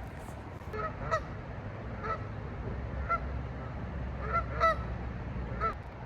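Geese honking: about seven short, loud calls, roughly a second apart, some in quick pairs.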